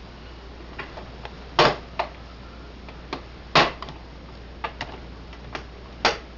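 Irregular clicks and knocks as the hood of a toy RC boat is worked loose and popped off, with three louder knocks about two seconds apart among fainter ticks.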